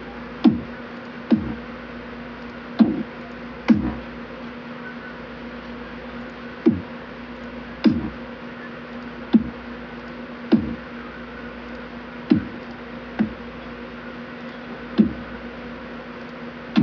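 Kick drum samples in FL Studio 6 previewed one after another while browsing for a kick. About a dozen single low thumps, each dropping in pitch, come at irregular gaps, some in pairs, over a steady low hum.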